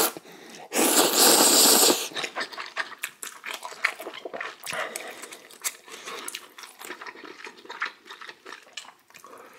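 A mouthful of instant ramen noodles slurped loudly for about a second, followed by chewing with small wet clicks and smacks.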